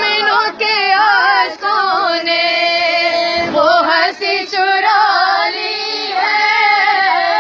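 An elderly woman singing a manqabat, a devotional song, with long held notes in a bending melody.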